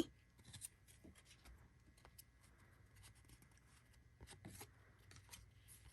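Near silence with faint scattered taps and light rustling of trading cards being handled and flipped through.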